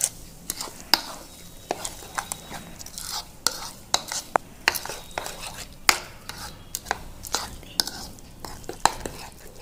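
Metal spoon stirring thick, bubbling biscuit-cake batter just mixed with Eno in a plastic bowl, with quick irregular clicks and scrapes of the spoon against the bowl, about two a second.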